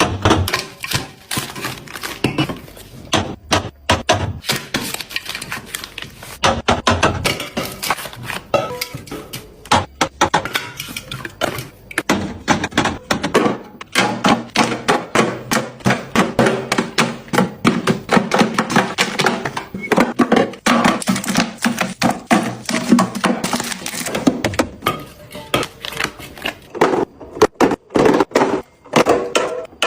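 Continuous rapid clicking, tapping and knocking of food containers and packaging being handled and set down while restocking a fridge.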